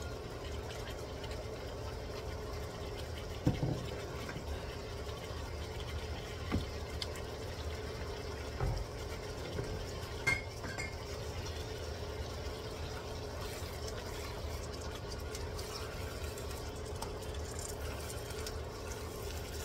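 Squid and string beans frying gently in a wok: a steady quiet sizzle over a low hum, broken by a few sharp knocks of utensils against the pan, the loudest about three and a half seconds in.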